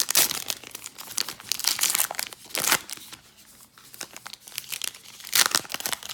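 Wrapper of a baseball card pack crinkling and tearing as it is opened, in several bursts with a quieter spell around the middle.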